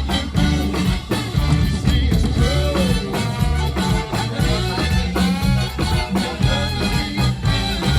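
Live swing band playing an upbeat number with a steady drum beat, bass and guitar under a gliding melody line.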